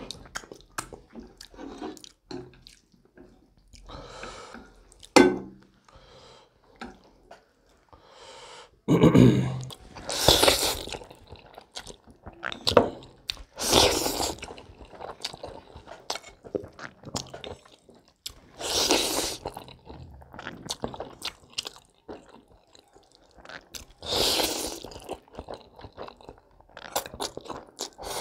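Close-miked eating of spicy instant noodles: wet chewing and mouth clicks, with several long, loud slurps as the noodles are drawn into the mouth.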